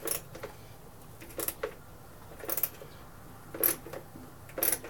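Hand ratchet wrench clicking in short bursts about once a second, one swing after another, as a bolt on a lawn mower engine is turned by hand.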